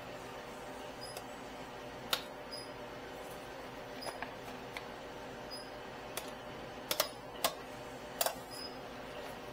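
Metal serving tongs clicking against steel salad-bar pans and a paper bowl as kale is scooped: scattered short sharp clicks, the loudest about three-quarters of the way through, over a steady background hum.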